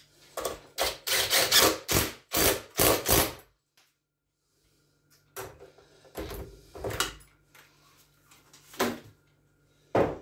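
Cordless drill-driver run in short bursts, driving the last bolts into a chicken plucker's metal base, with knocks and rubbing of the parts being handled. The sound cuts out completely for a moment about three and a half seconds in.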